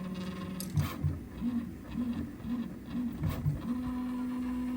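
3D printer's stepper motors running during a print: a steady hum that stops under a second in, then a string of short tones and low knocks as the moves change, then a steady, slightly higher hum near the end.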